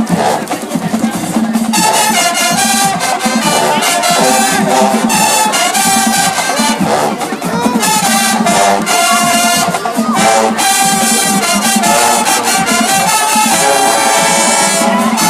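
Marching band playing loudly, brass section carrying the tune over steady drum strokes.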